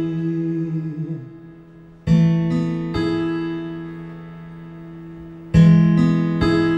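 Instrumental break in a slow ballad with no singing: chords on an acoustic guitar, struck about 2 s in and again about 5.5 s in, each followed quickly by a second chord and left to ring out and fade.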